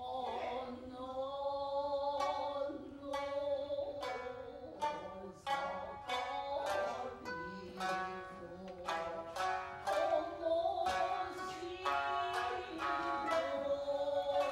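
Traditional Japanese dance music: plucked shamisen notes, about two a second, each ringing briefly, under a long-held, slightly wavering sung melody.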